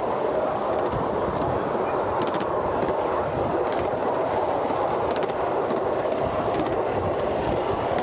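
Miniature ride-on train rolling steadily along its track: an even rumble of small wheels on the rails, with a few light clicks at irregular intervals.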